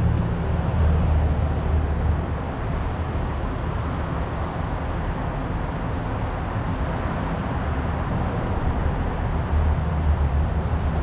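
Steady low rumbling background noise of a workshop, with no distinct tool strikes or knocks.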